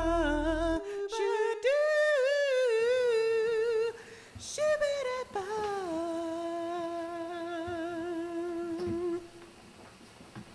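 A wordless voice humming long, wavering held notes. The backing music's low end drops out about a second in, and the humming fades out near the end.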